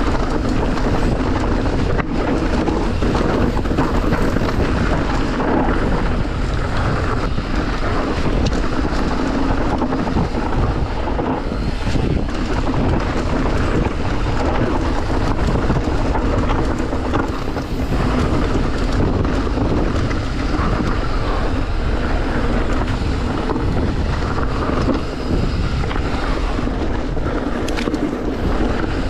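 Steady wind noise buffeting the microphone over the rumble and rattle of an electric mountain bike riding down a rough dirt trail, with a few sharp knocks.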